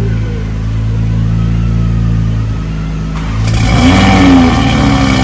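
Toyota GR Supra (A90) engine starting about three and a half seconds in, its exhaust fitted with a newly installed aftermarket downpipe. It gives a short start-up flare that rises and falls, then settles into a steady fast idle. Before it, a steady low hum.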